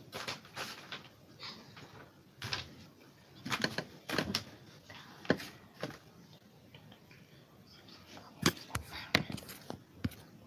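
Irregular clicks, taps and knocks close to the microphone, coming in small clusters with quiet gaps between; the sharpest about five seconds in and again about eight and a half seconds in.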